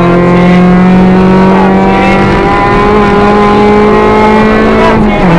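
Nissan Sunny GTi 2.0-litre rally car engine heard from inside the cabin, pulling hard at high revs with its pitch climbing slowly. About five seconds in the revs drop sharply with an upshift.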